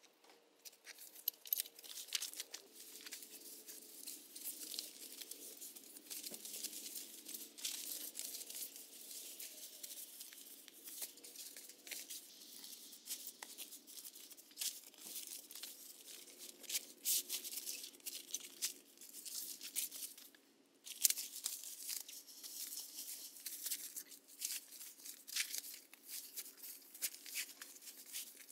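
Camping gear being packed by hand: bags and gear rustling and crinkling in a busy, irregular stream of crackles, with a brief lull near the end.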